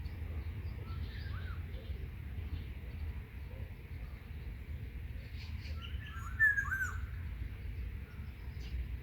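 Wild birds chirping: a short song phrase about a second in and again a little after six seconds, with scattered higher chirps, over a steady low background rumble.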